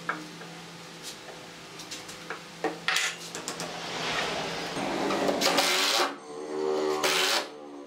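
Light knocks and taps of wood and a steel square being handled, then a cordless impact driver driving a screw into solid wood in two short runs, the second ending just before the end.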